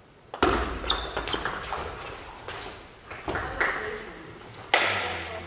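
Table tennis rally: a celluloid ball ticking back and forth off the bats and the table in a quick string of sharp pings, with a louder burst near the end.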